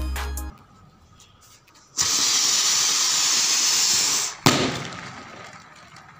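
Diwali rocket firework taped to a toy car, burning with a loud steady hiss for about two seconds. It ends in a single sharp bang, and a fainter hiss dies away after it.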